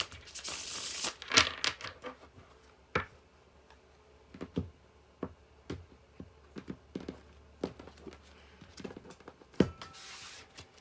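Tarot cards being handled: a short shuffling rustle at the start, then scattered light taps and flicks as cards are drawn and laid down, with another brief rustle near the end.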